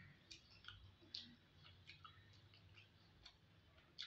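Faint, scattered wet clicks of eating by hand: fingers squeezing and mixing rice with vegetable bhaji on a plate, with mouth sounds of chewing, about two clicks a second.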